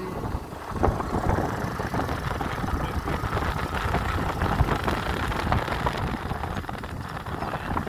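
Wind rushing and buffeting over the microphone on a moving motorcycle, with a low rumble of the ride underneath and a crackle of gusts throughout.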